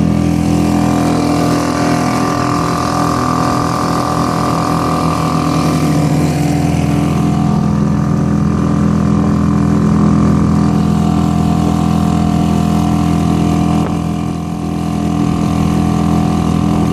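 Suzuki outboard motor running steadily, pushing an inflatable boat, with a brief dip in level about fourteen seconds in.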